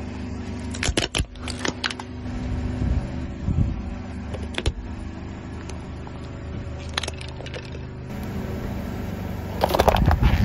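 A car tyre rolling over and crushing plastic objects, with scattered sharp cracks and snaps and a louder burst of crunching near the end, over the steady low running of the car's engine.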